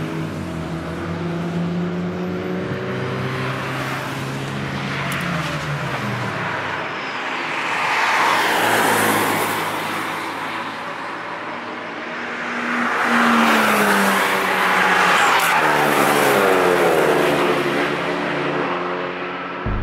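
Several cars passing one after another on a race track, their engine notes shifting in pitch as they accelerate and lift. Two louder passes go by, one near the middle and a longer one in the second half.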